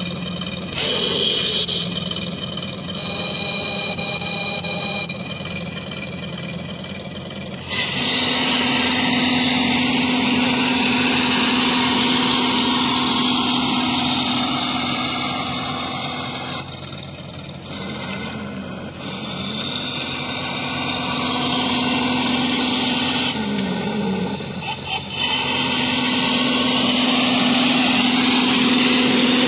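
Electronic engine sound effect of a 21st Century Toys 1:6 scale RC M5 Stuart tank, played through its built-in speaker. It opens with a few steady tones, then a louder, steady engine hum with a noisy edge sets in. The hum dips briefly past the middle and wavers in pitch a little later.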